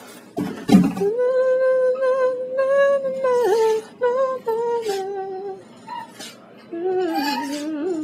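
A person humming a slow tune in long held notes, the melody dropping lower near the end. A single thump comes a little under a second in.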